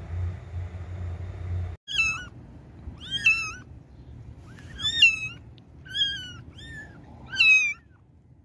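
Two kittens under three weeks old mewing: about six high-pitched mews, each rising then falling in pitch. A low steady hum fills the first two seconds and cuts off abruptly.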